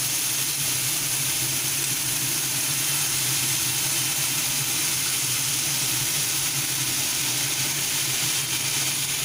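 Minced chicken, shredded carrot and chopped spring onions sizzling steadily as they fry in oil in a frying pan, over a steady low hum.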